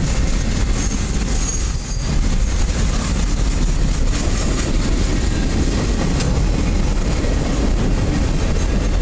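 Freight train of enclosed autorack cars rolling past, a steady rumble of steel wheels on rail. A thin, high wheel squeal in the first couple of seconds fades out.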